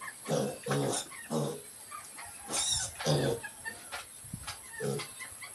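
Mini piglets grunting, a series of short low calls repeated several times, with a brief higher squeak about two and a half seconds in.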